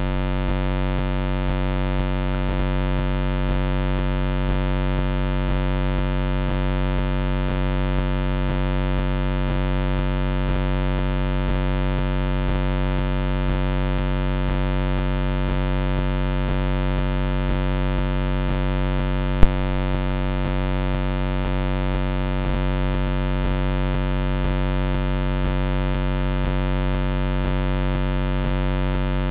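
Steady electrical buzz from the trail camera's own circuitry: a low hum with a stack of higher, even tones that never changes. One sharp click comes about two-thirds of the way through.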